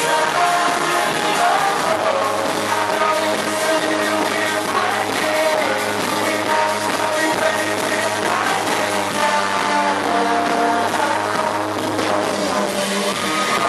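A live pop-rock band playing amplified music, with a steady bass line under sustained instrumental and vocal layers.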